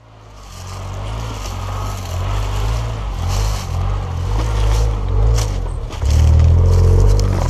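Suzuki Jimny JB23's 660 cc turbocharged three-cylinder engine running as the vehicle crawls over loose rocks, with tyres crunching and stones clicking underneath. The sound fades in at the start, and the engine gets louder about six seconds in.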